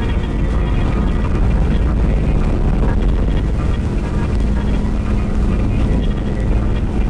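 A loud, steady low rumble in the film's soundtrack, dense and even with a faint hum under it and no beat or strikes.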